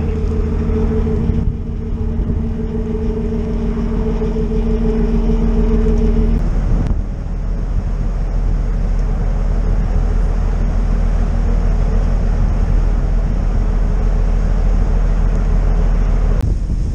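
Car ferry's engines and deck machinery droning steadily with a low rumble, over a steady two-note hum that drops out abruptly about six seconds in, leaving the rumble under a rushing noise.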